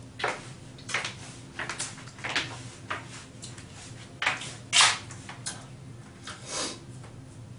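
Short, irregular scuffs and knocks, about a dozen, the loudest a little before five seconds in, over a steady low hum.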